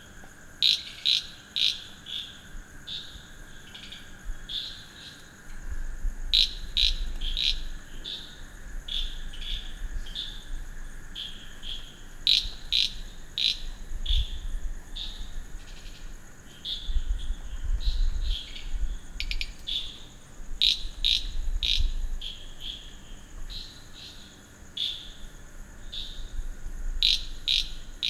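Night chorus of frogs and crickets after rain. Frogs call repeatedly, with a burst of sharp calls about every six seconds and softer calls in between, over a steady high insect drone.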